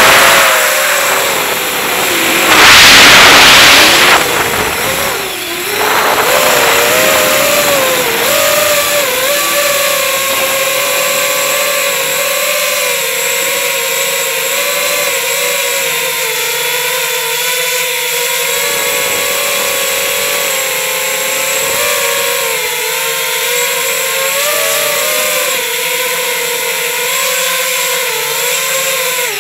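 Racing quadcopter's electric motors and propellers whining, heard from a camera on the drone itself, the pitch rising and falling with the throttle. Two loud rushing bursts come in the first four seconds, then a steadier whine that keeps wavering in pitch.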